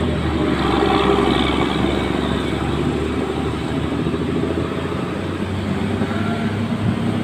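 Large bus engine running close by with a steady low rumble over general street noise.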